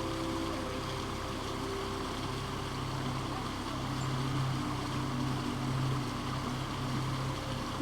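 Ambient background music of sustained, slowly shifting low tones over the steady rush of creek water.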